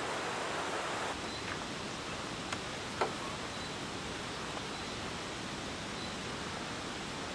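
Steady rushing outdoor noise that changes slightly and drops a little about a second in, with two faint clicks about two and a half and three seconds in.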